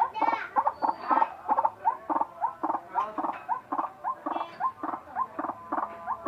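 White-breasted waterhen calling: a continuous run of short, repeated pitched calls, a few each second.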